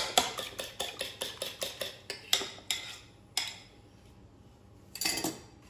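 Metal fork beating eggs in a ceramic dish, its tines clicking against the bowl about four times a second. The beating stops after about two and a half seconds, followed by a few separate taps.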